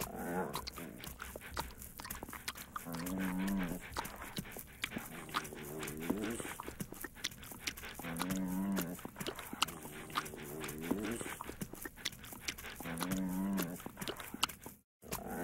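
Bulldog puppy giving low, drawn-out moo-like howls about every two to three seconds, some rising in pitch at the end, with wet licking clicks of its tongue in between.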